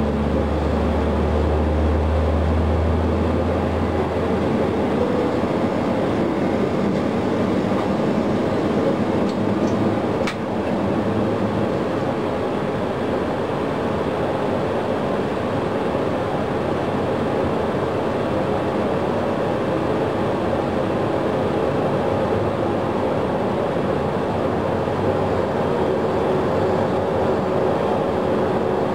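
Steady noise of Boeing 737 jet engines during an engine start, one engine turning up on its starter while the other runs at idle. A low hum drops away about four seconds in.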